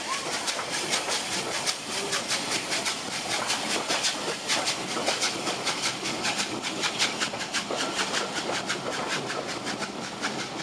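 Steam-hauled passenger train pulling out past the platform: coach wheels clicking rapidly and steadily over the rail joints, over the hiss of steam from the locomotive, Bulleid West Country-class 34007.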